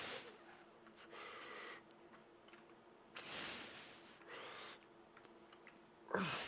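A man breathing hard through a set of heavy dumbbell forearm curls: about five forceful, hissing breaths a second or two apart, the last with a short voiced grunt near the end.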